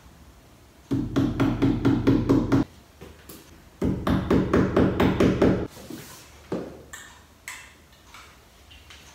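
Hammer tapping small nails into a wall in two runs of rapid, even taps, each lasting about two seconds, followed by a few single, softer knocks.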